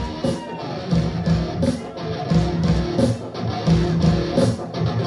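Live band playing an instrumental passage: strummed guitar over bass and drums, with a steady beat and a cymbal-like crash about every second and a half.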